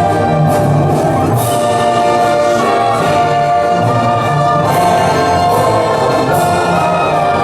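Orchestral music with brass, sustained chords held at a steady loud level.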